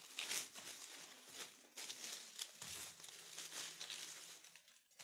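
Leafy ivy stems rustling as they are handled and woven into a wreath ring: a faint string of irregular leafy crinkles and rustles.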